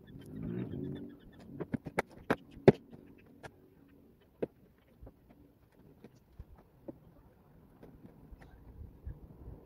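Sharp clicks and knocks of a metal mesh grille being pushed and clipped into a car's front bumper, a quick run of them about two seconds in, one more a couple of seconds later, then scattered light taps.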